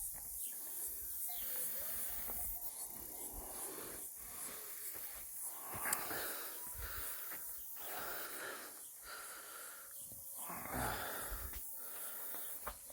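A person breathing hard close to the microphone, with heavy, wheezy breaths coming about once a second, like someone out of breath.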